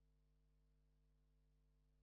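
Near silence, with only a faint, steady low hum.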